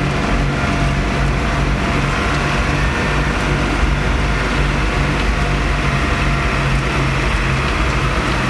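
Farm tractor engine running steadily while driving, a low constant drone with a slightly pulsing hum.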